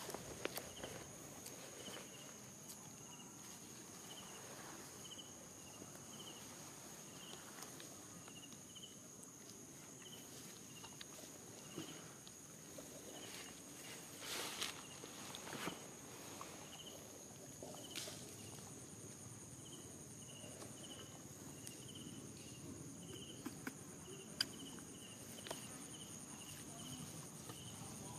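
Insects calling in grass: a steady high drone with runs of short chirps, about two or three a second, coming and going. Now and then a soft rustle or click, the loudest about fourteen seconds in.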